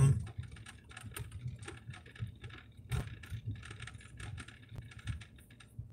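Low road rumble inside a moving car, with a scatter of light, irregular clicks and ticks.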